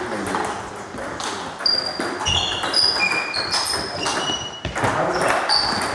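Short, high squeaks of sports shoes on a sports-hall floor, many in quick succession at different pitches, with a few scattered knocks of a table tennis ball.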